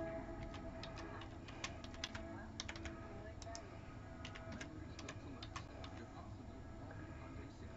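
Faint computer keyboard typing: irregular keystrokes, a few clicks close together and then short pauses.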